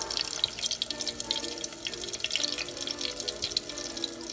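Hot oil in a deep-frying pot sizzling and crackling with many quick pops around a basket of breaded shrimp. Background music plays along with it.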